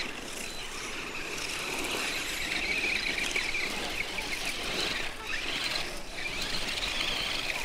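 Radio-controlled off-road buggy's motor and drivetrain whining as it claws up a steep dirt slope. The high whine wavers in pitch with the throttle.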